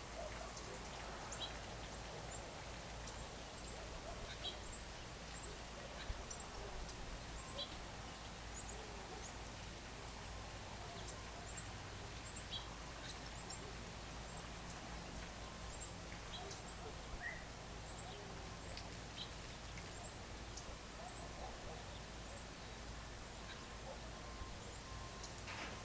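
Birds chirping in the evening: many short, high chirps scattered throughout, with a few lower calls, over a steady faint outdoor background hiss.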